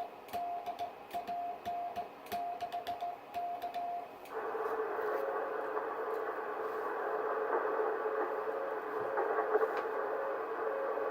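Amateur radio Morse code (CW): a steady sidetone near 700 Hz keyed in dots and dashes, with the key clicking on each element, for about four seconds. Then the transceiver goes to receive, a hiss of band noise comes up, and a faint, lower-pitched Morse signal keys inside it: a weak low-power station heard through poor band conditions.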